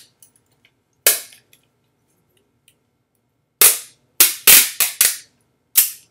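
Sharp snapping cracks, about seven, from a pink plastic craft item being worked in both hands. One comes about a second in and the rest are bunched together in the second half.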